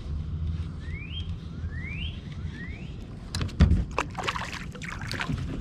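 Splashing and sharp knocks from the water and kayak in the second half, as a fish is brought in, over a steady low rumble. Three short rising whistles come before it.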